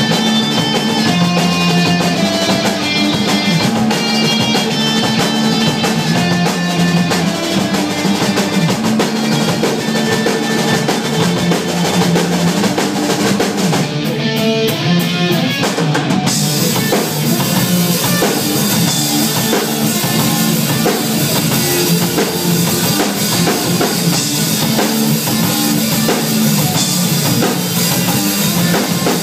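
Live rock band playing electric guitars over a drum kit. About fourteen seconds in, the cymbals drop away for a couple of seconds, then the full band comes back in, denser, with cymbals.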